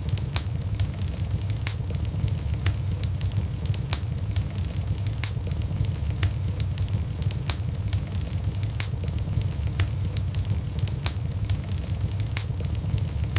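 Wood fire in a fireplace burning and crackling, with frequent sharp pops at irregular intervals over a steady low rumble.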